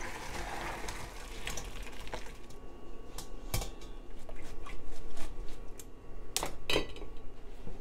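Hot stock pouring from a stainless steel pot through a mesh strainer into a pot in a sink, a splashing rush for the first couple of seconds. After that, a series of sharp metal clinks and knocks as the strainer and pots are handled, two of the loudest close together near the end.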